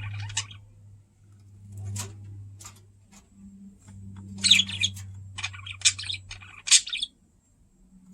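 Budgerigars (parakeets) chirping and warbling in short bursts, busiest in the second half and stopping about seven seconds in, over a low steady hum.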